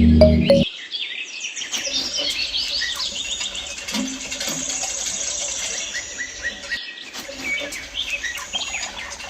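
Many small birds chirping and twittering in quick high notes. It opens with the end of a loud low-pitched musical tone that cuts off abruptly under a second in, and the chirping briefly drops out about two-thirds through.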